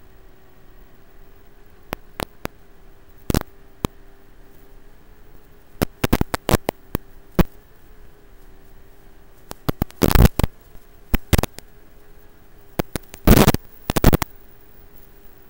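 Hiss and static from an analog FPV video link's audio channel, with a faint steady hum and scattered sharp crackles. The crackles come in bursts, loudest about ten seconds in and again around thirteen to fourteen seconds in, the way an analog link crackles when its signal breaks up.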